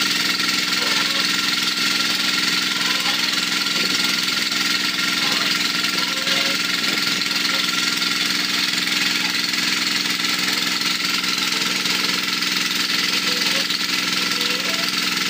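Engine of a well-drilling rig running steadily at a constant speed, turning the drill pipe down into the borehole.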